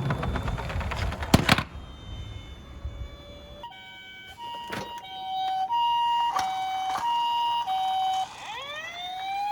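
Toy car rattling as it rolls down a slope, ending in a sharp clack; then a toy ambulance's electronic siren plays, alternating a high note and a low note. Near the end a second electronic siren starts with a rising wail.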